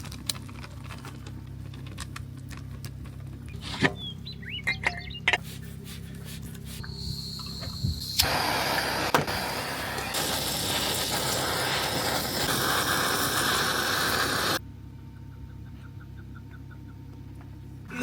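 Portable generator running with a steady low hum, with a few sharp clicks and taps about four to five seconds in. From about eight seconds in a loud even rushing noise lies over it, and all of it cuts off abruptly near the end.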